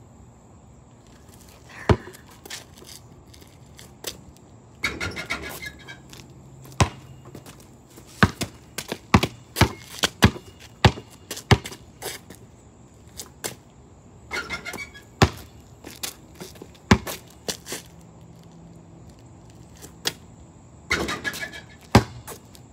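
Basketball dribbled on a concrete driveway: a series of sharp bounces, single ones at first, then a quick run of about two to three bounces a second. Three short rougher scuffing noises come between the runs of bounces.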